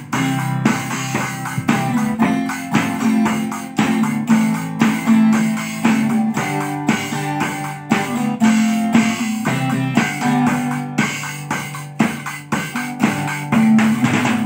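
Instrumental band music led by guitar, with a steady rhythm of strummed and plucked notes and no singing.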